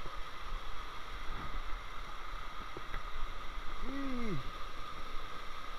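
Water running steadily through a small concrete irrigation channel, with one short voiced sound about four seconds in.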